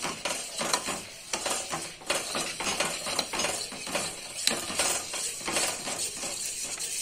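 Metal spoon stirring custard in a stainless steel bowl without pause, making a rapid run of scrapes and clinks against the bowl's sides and bottom. It is the constant stirring that keeps the milk and custard powder from lumping as it cooks.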